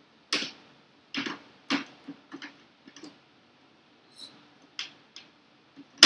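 About a dozen irregular sharp plastic clicks and taps as the washable filter is fitted back into the rear grille of a portable dehumidifier.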